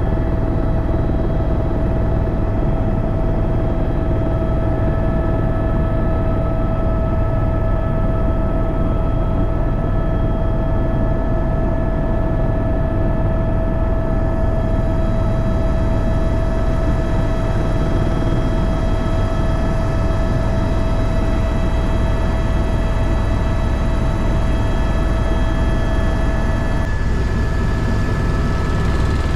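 Helicopter running in flight, heard from inside the cabin: a heavy, steady rotor and engine rumble with a high, steady turbine whine on top. The whine tones shift abruptly near the end.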